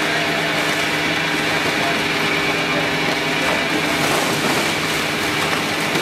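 EPS hot melting machine running steadily while it extrudes molten polystyrene foam: an even machine hum with several constant tones held throughout.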